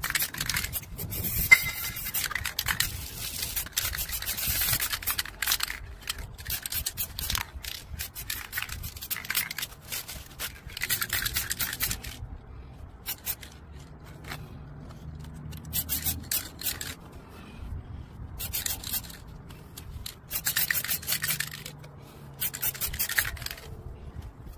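Aerosol spray paint cans hissing in repeated bursts, a long spray at first and then shorter sprays of a second or so with short pauses between.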